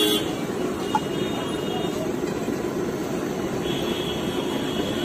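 Steady noise of a busy street with passing traffic around a roadside food stall, with a faint vehicle horn about four seconds in.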